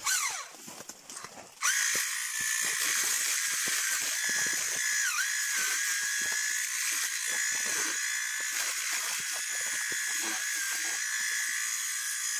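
Handheld electric coffee harvester switching on about two seconds in and running with a steady high motor whine, its pitch dipping briefly once about five seconds in.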